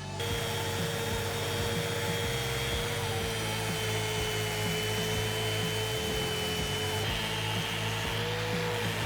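Electric power tool running steadily with a constant motor whine, switched on just after the start.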